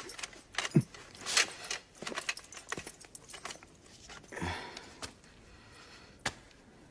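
Rope being untied from a bound man's wrists, then his hands rubbing the chafed wrists: scattered soft clicks, rustles and scrapes.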